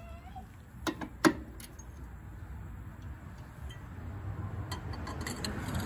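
Socket wrenches on the lower rear shock absorber's bolt and nut clinking against the metal: a couple of sharp metallic clicks about a second in, then a few lighter ticks, over a low rumble that grows near the end.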